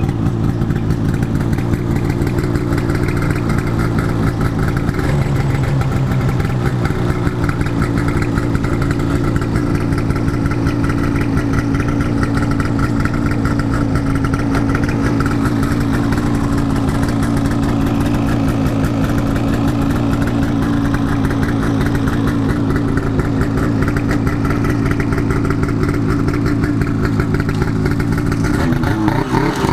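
Snowmobile engine idling steadily, starting to rev right at the end.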